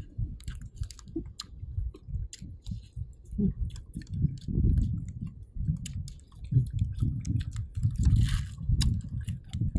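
Corn on the cob being bitten and chewed close to the microphone: a run of small sharp clicks and crunches over a constant low rumble.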